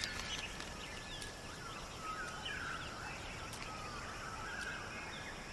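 Soft birdsong: many short chirps and slurred whistles from several birds, over a faint background hiss.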